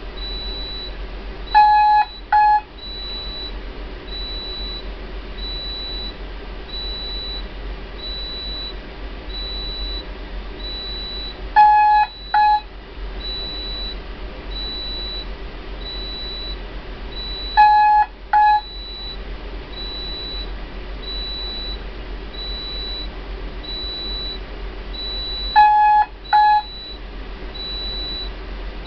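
Ship's emergency generator alarm panel sounding during alarm testing: a high, pulsed beep repeats about once a second throughout. A louder, lower double buzz breaks in four times, over a steady low hum.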